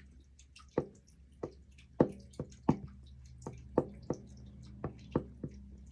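Water dripping: irregular drops, about two a second, each a short plink falling in pitch, over a faint steady low electrical hum.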